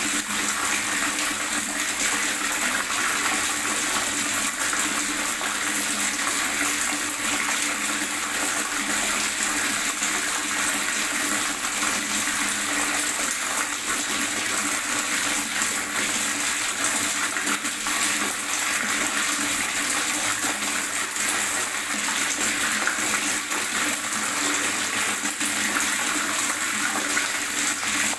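Water gurgling and running steadily, an even splashing rush with no break or change.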